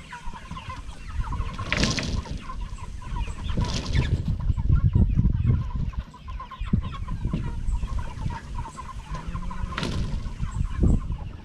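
A flock of chickens clucking steadily, over a low rumble with several sharp knocks.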